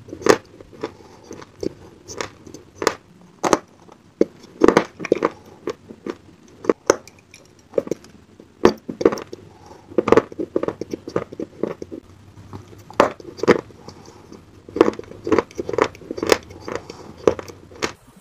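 Close-up crunching as hard chunks of grey edible clay are bitten and chewed: an irregular series of sharp crunches with short pauses between.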